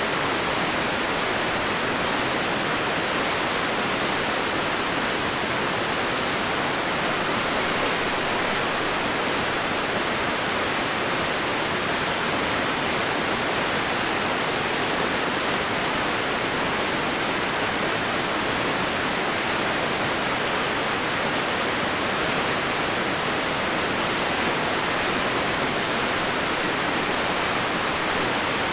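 Crystal River water rushing and falling past the mill, a steady even rush of white water.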